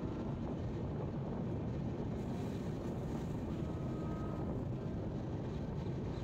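Steady low rumble of a moving vehicle, with wind noise on the microphone.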